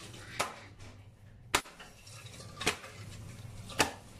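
Kerala parotta dough slapped down onto a granite countertop four times, about once a second, as it is flung and stretched thin.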